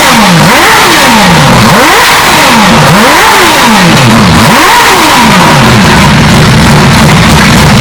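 Mazda 757's three-rotor rotary engine, its revs dropping and climbing again about once a second, then holding a steady lower note near the end. The sound is boosted to a harsh, overdriven distortion.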